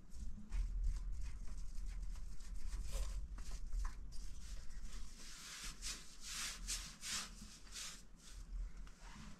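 Paintbrush stroking paint onto a metal door: a run of short, repeated brush strokes that grow busier and louder about halfway through.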